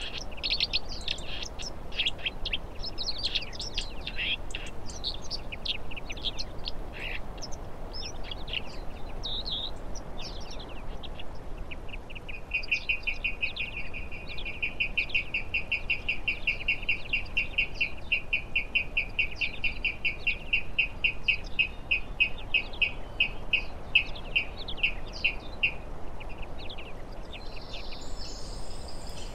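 Songbirds chirping and calling. About a third of the way in, one bird starts repeating a short note rapidly and evenly, and keeps it up for over ten seconds.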